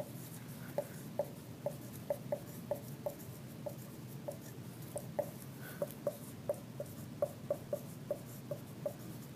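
Marker writing on a whiteboard: a string of short, irregular squeaks and taps, about two to three a second, as block letters are written.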